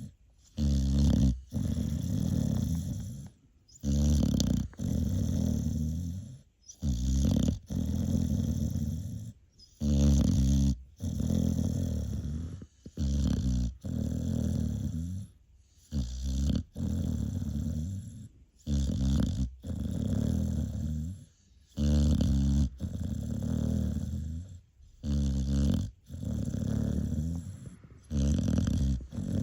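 A 7.5-month-old American Bully puppy snoring loudly in its sleep. Each breath is a deep, rasping snore, a short one followed by a longer one, about every three seconds with brief pauses between.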